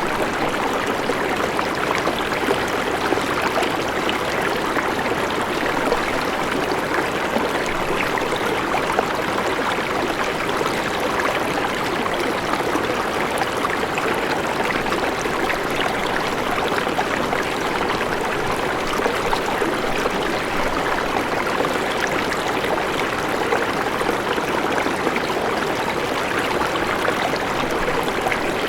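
River water flowing steadily over rocks, a continuous rushing with fine gurgling and splashing texture.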